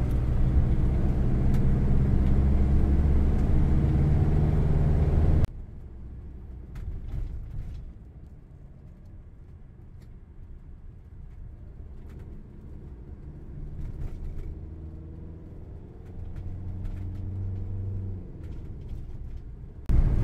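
Motorhome engine and road noise heard inside the cab while driving. About five seconds in it drops abruptly to a quieter, low engine drone whose pitch slowly rises and falls as the vehicle moves at low speed.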